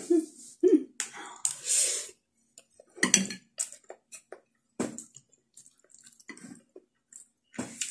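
A person eating noodles in broth up close: short, wet slurps and chewing sounds in separate bursts, with a few brief murmurs.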